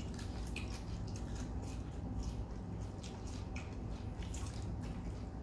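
People eating a meal: many faint, irregular clicks and smacks of chewing and utensils, over a steady low hum.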